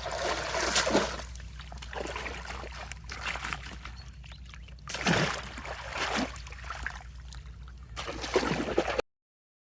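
Water splashing and trickling in uneven surges, as when toys are being rinsed; the sound cuts off suddenly about nine seconds in.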